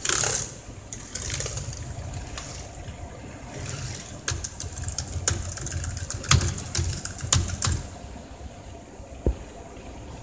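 Keys of an Asus E203M notebook keyboard pressed one after another, a run of quick key clicks as each key is tested after repair. The clicking stops about two seconds before the end.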